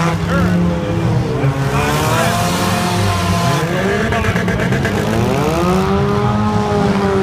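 Demolition derby car engines revving up and easing off over and over, over a steady low rumble of the other cars running.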